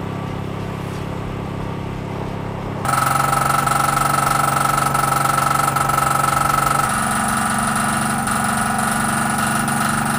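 A small engine running steadily with a constant hum. About three seconds in it suddenly gets louder and a strong higher tone comes in, and about seven seconds in the pitch of the hum shifts again.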